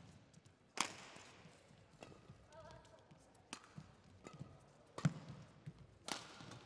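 Badminton rackets striking a shuttlecock in a doubles rally: sharp cracks about a second in, then again near the middle and toward the end, the loudest echoing briefly in the hall. A short squeak comes between the first two hits.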